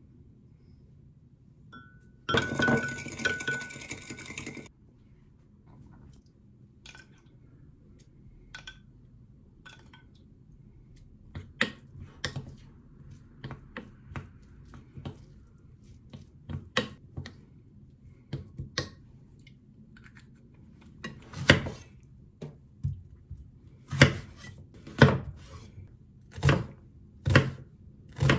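Kitchen prep sounds. About two seconds in there is a dense rattle of a couple of seconds as sugar goes into a glass cup, followed by scattered light clinks and taps of a wooden spoon mixing rice in a glass bowl. In the last several seconds a knife chops an onion on a wooden cutting board, about one stroke a second, and these are the loudest sounds.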